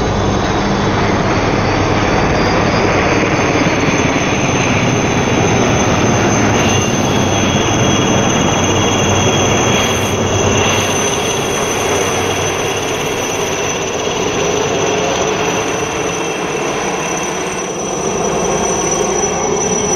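Fighter jets flying past, their engines making a loud steady roar with a thin high turbine whine. The roar eases a little past the middle and swells again near the end.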